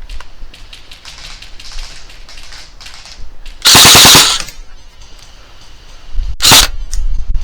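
Airsoft guns firing. Light, rapid clicking of shots comes first, then a loud burst of full-auto fire about three and a half seconds in that lasts under a second, and a shorter loud burst near the end.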